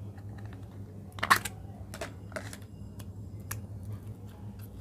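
Snap-on lid popped off a small plastic slime cup, a sharp crack about a second in, then several lighter clicks from the thin plastic cup being handled as the slime is pulled out.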